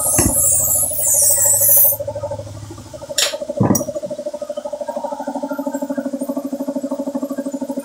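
A speaker box sounding a steady tone that pulses rapidly, about eight times a second. Handling rustle covers it for the first couple of seconds, and two knocks come about three seconds in.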